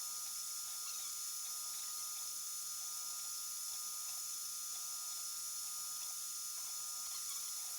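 3D printer's stepper motors sounding a string of short, flat pitched tones as the axes move, over a steady high whine and hiss.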